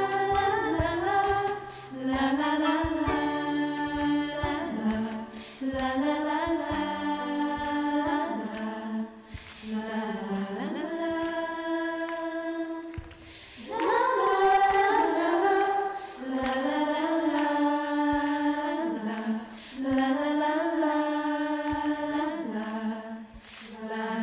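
A small group of singers singing a song together through microphones, in harmony, holding long notes in phrases of about two seconds with short breaks between.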